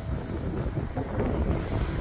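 Freight train rolling past, a steady low rumble, with wind buffeting the microphone.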